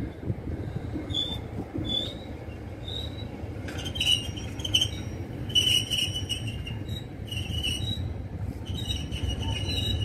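Double-stack container freight train rolling past: a steady low rumble of wagons on the rails, with short high-pitched wheel squeals coming and going, more often in the second half.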